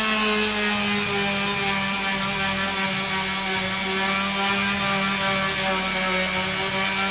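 Hand-held power drill motor running at a steady speed for about seven seconds with an even whining hum, starting and stopping abruptly, as used for driving screws.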